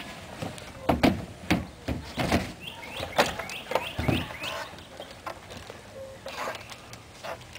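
Knocks and thumps from children clambering over a wooden swing set and plastic playhouse, several in quick succession, followed about three seconds in by a run of short, rising squeaks.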